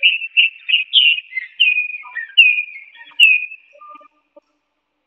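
Caged Chinese hwamei (melodious laughingthrush) singing a run of short, clear whistled notes, several of them sliding down in pitch, then stopping about four seconds in.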